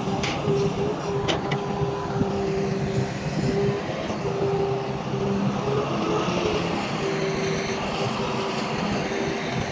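Heavy diesel earth-moving machinery running steadily under work, with an intermittent mid-pitched whine over the engine drone and a couple of sharp metallic clanks near the start.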